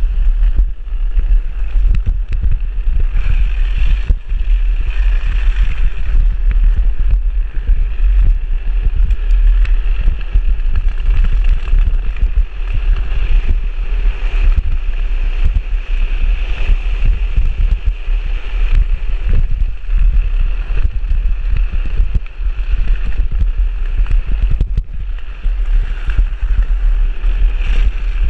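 Strong wind buffeting on the microphone, a heavy low rumble, over the continuous rolling and scraping of a drift trike's hard plastic rear wheels sliding on asphalt during a fast downhill run.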